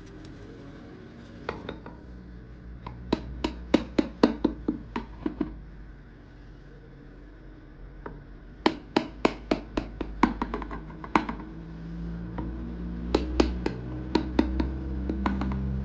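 Three bursts of quick, sharp clicks and knocks, about four a second, from hands working with hard objects, over soft background music.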